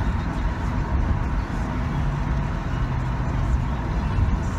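Steady road and engine noise inside a car's cabin while driving at freeway speed.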